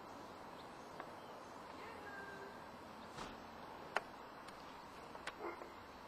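Faint steady hiss of outdoor background with a few scattered sharp clicks, the loudest about four seconds in.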